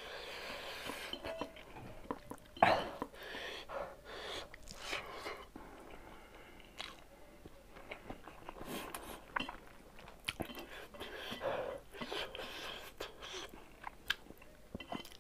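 Close-miked eating: a person chewing a mouthful of rice and pork by hand, with irregular wet mouth smacks and clicks and a sharper smack about three seconds in, along with the soft squish of fingers gathering rice on a steel plate.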